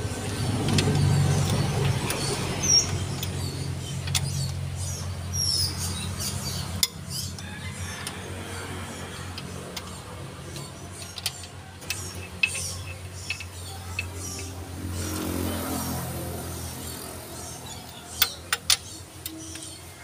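Sharp metallic clicks and clinks of a long-handled socket wrench working bolts on an open Toyota Fortuner gasoline engine's cylinder head, with a cluster of louder clicks near the end, over a steady low hum. A few short bird chirps.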